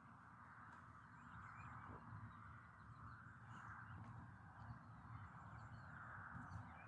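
Near silence: faint steady outdoor background noise with a few faint, brief chirps.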